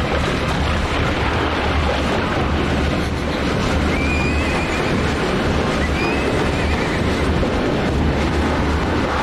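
Cartoon avalanche sound effect: a steady, heavy rumbling rush of falling snow, with a pony whinnying briefly twice, about four and six seconds in.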